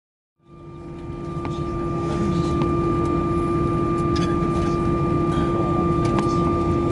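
Cabin noise of an Airbus A319 airliner taxiing: a steady low rumble with a steady hum and a higher whine from the jet engines and cabin air. It fades in about half a second in, with a few faint rattles.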